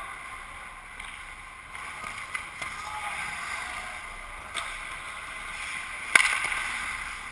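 Ice hockey skates scraping and carving across the ice, with a few sharp clacks of sticks and puck. A single loud crack comes about six seconds in.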